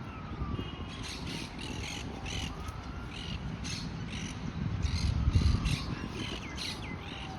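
A bird giving a run of harsh, rapid caws, a few tenths of a second apart. A low rumble swells underneath about five seconds in.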